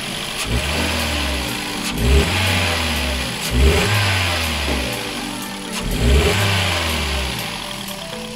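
Four-cylinder car petrol engine with an ignition misfire, running rough and revved up and let fall back several times.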